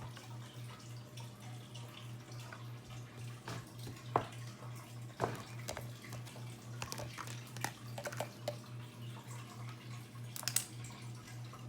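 Light, scattered clicks and taps of plastic Play-Doh tools and moulds handled on a table, with the sharpest taps about four, five and ten seconds in, over a steady low hum.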